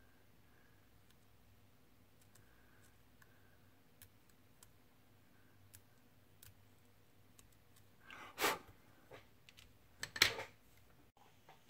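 Faint scraping and small ticks of a hobby knife trimming sprue nubs off small plastic model parts, then a couple of louder clacks about eight and ten seconds in as the parts and tools are set down on the cutting mat.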